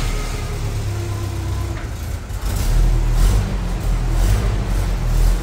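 1984 Toyota pickup's carbureted 22R four-cylinder engine running just after a start, unevenly, with louder swells in revs about halfway through and near the end.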